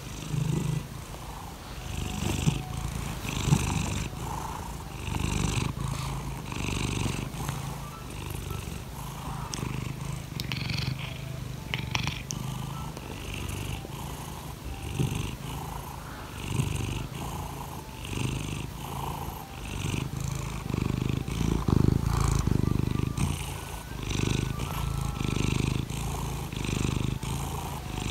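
Long-haired tabby-and-white domestic cat purring steadily close to the microphone while being petted, the rumble pulsing about once a second.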